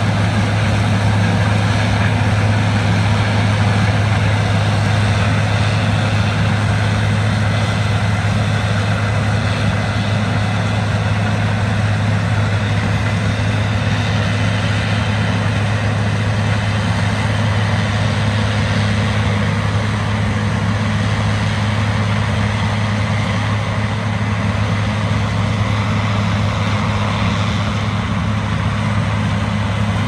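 Combine harvester running steadily while picking corn: a constant heavy diesel drone with a thin steady whine above it.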